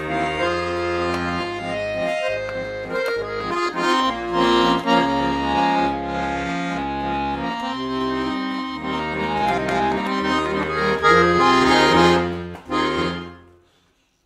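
Bayan (chromatic button accordion) playing a tune, a melody over low bass notes, without singing. The playing stops about a second before the end.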